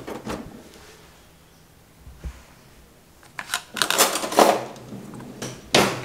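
Kitchen dishes and utensils being handled and set down on a stone countertop: a few sharp knocks and clinks, bunched a few seconds in, with one more sharp knock near the end.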